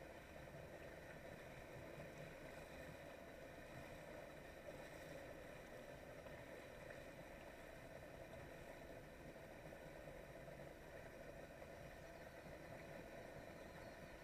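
Faint, steady drone of a Polaris SL 900 personal watercraft's three-cylinder two-stroke engine while riding along.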